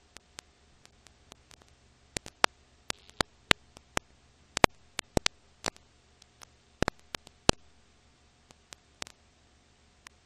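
Irregular clicks and pops, some sharp and loud, over a faint steady hiss and low hum: the surface crackle of an old silent-film transfer. The pops come thickest in the middle and thin out toward the end.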